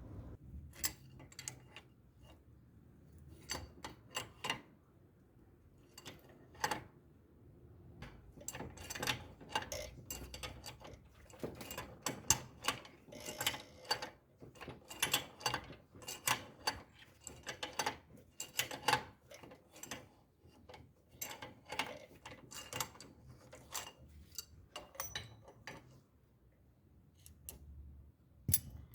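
Irregular sharp mechanical clicks and ticks, often bunched in quick clusters, sparser near the start and the end.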